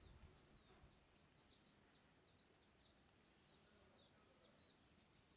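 Near silence, with a small bird chirping faintly: short high chirps, several a second.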